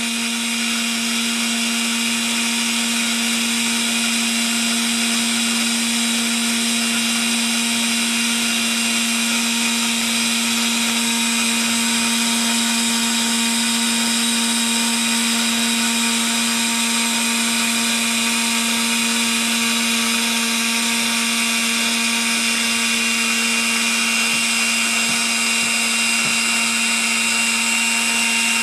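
Battery-powered Meccano electric motor running at a steady speed, driving its Meccano gear train as it turns a sectioned toy steam engine. It gives a constant hum, with a busy high-pitched whine of meshing gears over it.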